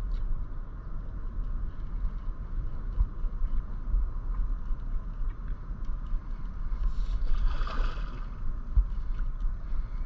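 Wind buffeting a kayak-mounted microphone, a steady low rumble that flutters in loudness. A short, higher sound stands out about seven seconds in.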